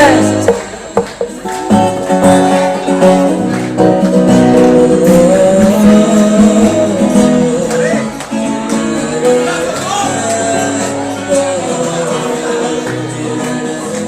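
Instrumental break of an Arabic pop song: a melody over plucked strings and a steady accompaniment, without singing.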